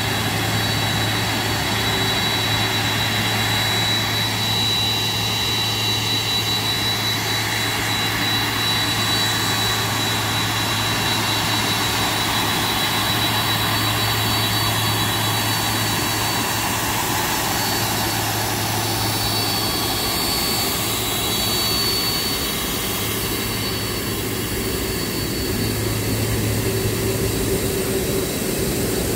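Boeing 747-400 freighter's jet engines running steadily at taxi power, a high steady whine over a constant low rumble and roar.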